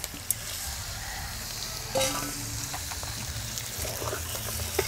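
Raw chicken pieces sizzling in hot oil with fried onions and ginger-garlic paste in a metal pot, stirred with a steel spoon that scrapes and clinks against the pot a few times.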